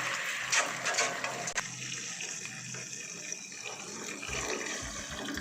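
Boiled milk being poured into a pan, a steady pouring and gushing of liquid, with a couple of sharp clicks in the first two seconds.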